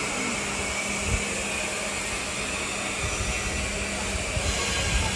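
Carton-making machinery running with a steady mechanical noise and a faint even hum, with a low knock about a second in.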